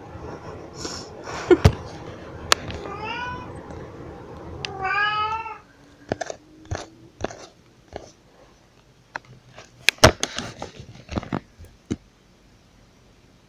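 Domestic cat meowing twice, a few seconds in. This is followed by a scattered series of sharp knocks and taps, the loudest about ten seconds in.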